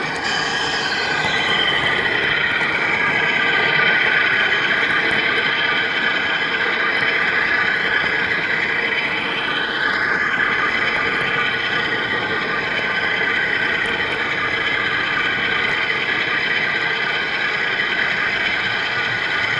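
HO scale model train running along its track, heard from a camera riding on it: a steady rolling rattle with a constant mechanical whine, and a short rising tone about halfway through.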